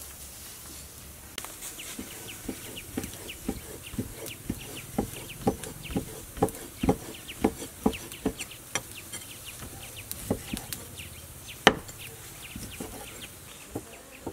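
Kitchen knife cutting raw pork on a thick wooden chopping block: repeated taps of the blade on the wood, about two a second, with one harder chop near the end. Chickens clucking in the background.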